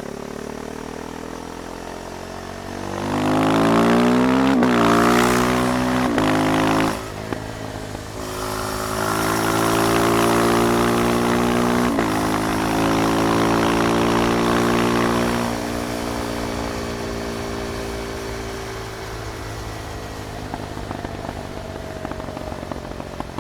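KTM Duke 390's single-cylinder engine under way. It pulls up through the gears with quick upshifts in the first several seconds, eases off, then pulls hard again with another shift about halfway through. Near the end it drops back to a lower, quieter run.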